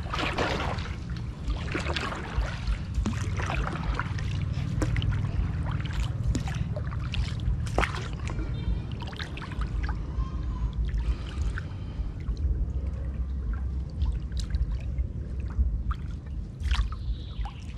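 Water splashing and dripping from a paddle as a small boat is paddled, with scattered sharp knocks and splashes over a steady low rumble.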